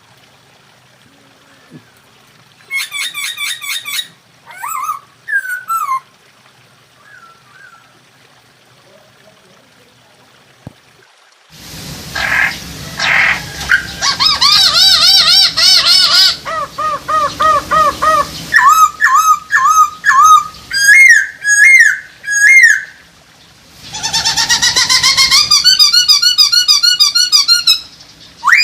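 Poksay hongkong laughingthrushes calling and singing. A few short whistled phrases come first, then from about a third of the way in a long, loud run of rapidly repeated, sweeping up-and-down whistles, the full song of birds in breeding condition.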